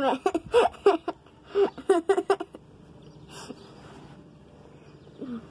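A child's voice making a quick run of wordless, pitched vocal sounds, then a breathy hiss and one short falling vocal sound near the end.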